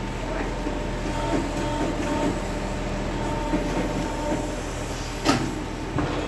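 Sawmill machinery running with a steady hum while a log is loaded, with a single sharp knock about five seconds in.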